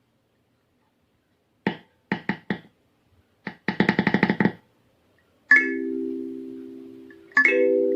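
LingTing LT-K17Y-EQ 17-key kalimba being plucked. A few quick single notes come first, then a fast run of plucked tines. Two sets of notes played together follow, each ringing on and slowly fading, the second near the end.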